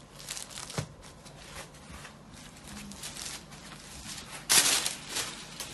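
A zari-woven Kanjivaram silk saree rustling and crinkling as hands unfold it and spread it out, with a sharp click about a second in and a loud swish of the cloth about two-thirds of the way through.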